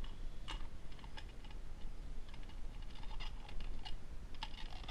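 Irregular light clicks and taps from handling a just-removed steering wheel and its loose parts.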